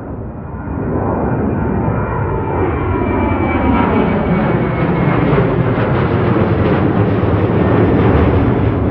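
Boeing 737's twin CFM56 turbofan engines as the airliner climbs out overhead after takeoff: a loud jet roar that swells about a second in and then holds, with a whine sliding down in pitch as it passes.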